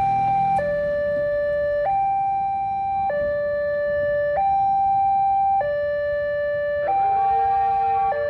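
Railway level-crossing warning alarm sounding a steady two-tone hi-lo signal, switching between a higher and a lower tone about every 1.2 seconds, the signal that the crossing barrier is closing for an approaching train. Near the end a second, lower wavering tone joins it.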